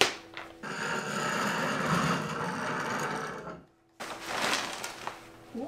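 Plastic wrapping rustling and crinkling as it is pulled off a rolled area rug. It stops abruptly about three and a half seconds in, then starts again.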